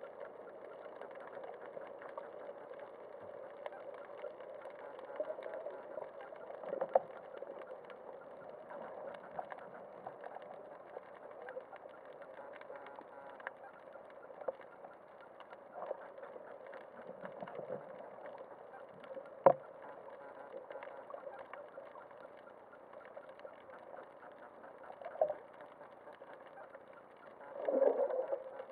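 Muffled underwater noise picked up by a camera in a waterproof housing: a steady low hum with scattered clicks and knocks. The sharpest click comes about two-thirds of the way in, and a louder bump follows near the end.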